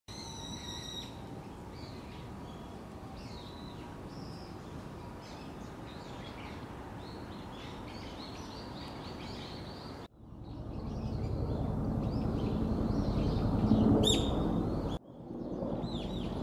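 Small birds chirping repeatedly over steady outdoor background noise. About ten seconds in the sound cuts to a louder ambience with more low rumble, and a single louder bird call rings out near the end.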